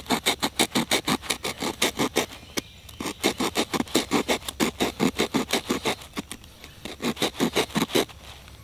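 A multi-tool blade scraping wood in quick back-and-forth strokes, about five or six a second, cutting out the notch in a hand-drill fireboard. The strokes come in three runs, with short pauses a little over two seconds in and about six seconds in.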